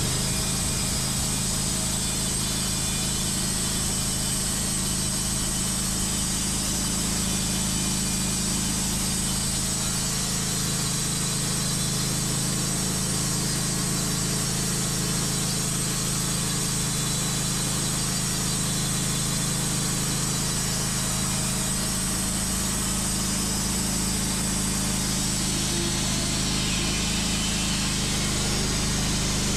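Wood-Mizer LT15 portable band sawmill running steadily, its motor and band blade sawing through a hard-maple log.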